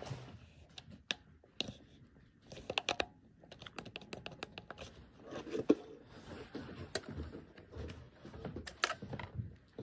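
Irregular clicks and taps of fingers pressing the plastic buttons on a La Crosse W85947 weather radio, a few sharper than the rest.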